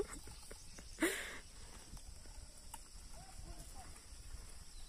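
Faint open-field ambience, with one brief call or shout about a second in and a few faint distant calls around the middle.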